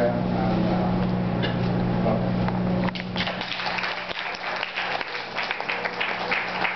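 Audience applause, a dense patter of clapping that starts about three seconds in. Before it there is a steady low hum, which cuts out as the clapping begins.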